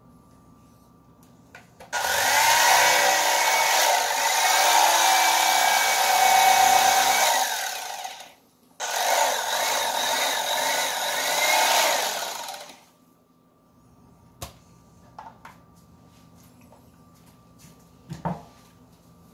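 Electric fillet knife running in two bursts, about six seconds and then about four seconds, as it cuts through a sail catfish; its motor whine dips and rises in pitch during the cut. A few light knocks follow.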